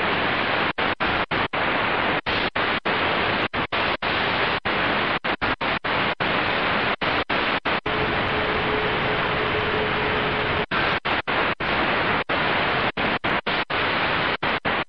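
Steady shortwave static hissing from a Qodosen DX-286 receiver's speaker as it fast-scans the 31-metre band, cutting out for an instant many times as it steps from channel to channel. A faint steady whistle rises out of the hiss about eight seconds in and lasts a couple of seconds.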